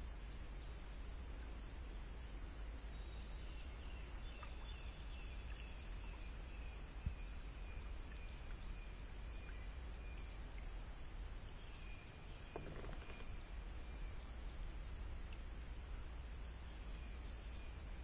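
Chorus of cicadas shrilling steadily, with scattered short bird chirps and whistles over it and a single sharp tap about seven seconds in.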